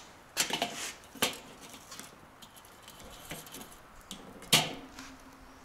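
Metal grilling tool clinking and knocking against the Weber kettle's steel cooking grate while apple wood smoking chunks are handled over the coals. A handful of separate knocks, with the sharpest about four and a half seconds in.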